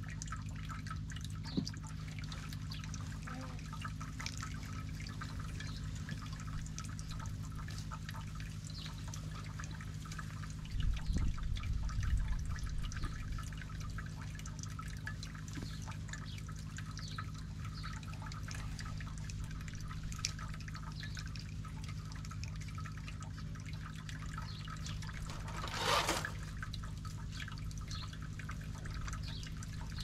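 Faint wet clicks and squelches of raw meat and fat pieces being pushed onto thin metal skewers, over a steady low hum. There is a louder dull rumble near the middle and a short hiss near the end.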